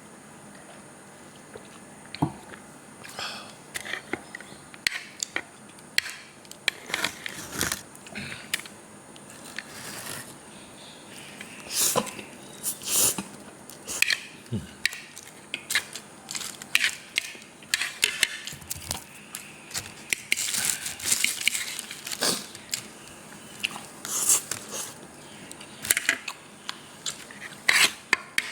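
A person chewing a mouthful of kolo mee noodles close to the microphone, with many irregular wet clicks and smacks.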